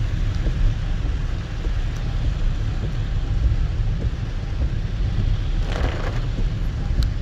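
Heard from inside a car driving on a rain-soaked road in heavy rain: a steady low rumble of engine and tyres with an even hiss of rain and wet-road spray.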